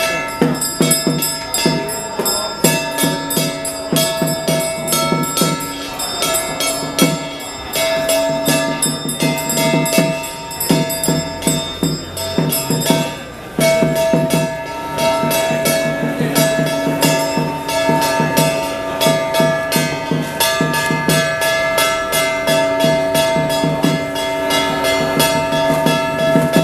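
Traditional temple ritual music: fast, dense drum, gong and cymbal strokes under several held, high wind-instrument notes, with a brief break about halfway through.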